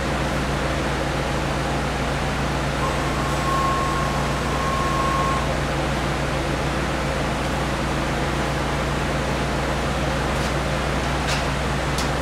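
4-axis CNC machining centre running with a steady hum and low steady tones, a faint whine coming in for a couple of seconds about three seconds in, and a few light clicks near the end.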